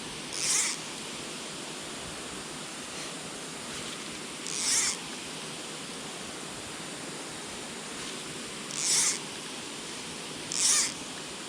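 A steady rush of noise like running water, broken four times by short breathy hisses, each about half a second long.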